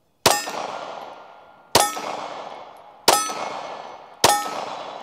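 Four pistol shots from a 3D-printed Glock-based pistol fired in steady succession, a little over a second apart, each followed by a ringing that dies away over about a second.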